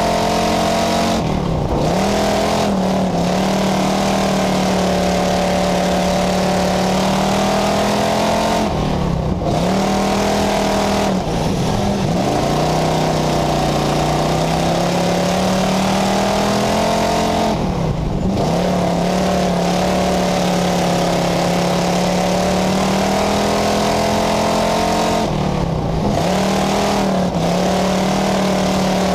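Pure Stock dirt-track race car's engine heard from inside the cockpit, running at high revs. The revs dip briefly several times and climb back each time as the driver lifts off for the turns, over steady road and wind noise.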